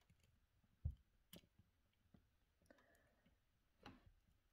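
A few faint clicks and a soft rustle as fingers work a squid jig free of its packaging.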